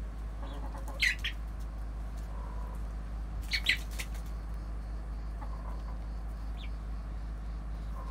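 Chickens calling: a few soft, low clucks, with two short, sharp, high-pitched squawks, one about a second in and the other around three and a half seconds in.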